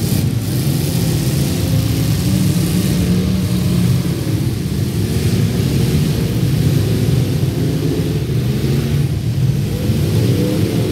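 Several stock V8 demolition derby cars' engines running and revving together, with one engine's pitch rising near the end.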